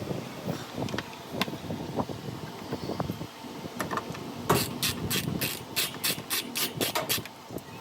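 Hands and tools working on a washing machine: scattered knocks and clicks, then about halfway through a run of about ten quick, sharp rasping strokes, some four a second.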